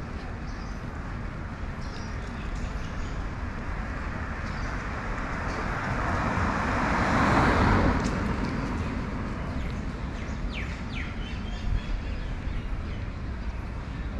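A vehicle passing close by on the road: its noise swells to a peak about halfway through and then fades, over a steady street background. A few short bird chirps follow soon after.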